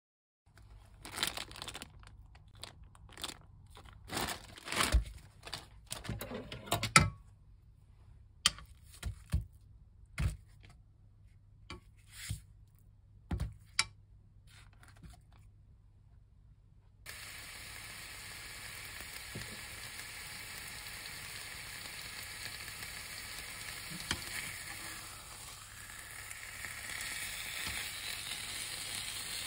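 Plastic film crinkling and tearing, with sharp clicks and knocks, as wrapped frozen pork belly slices are handled in a frying pan. About halfway through, the pork belly starts sizzling in the pan, a steady sizzle that grows louder toward the end.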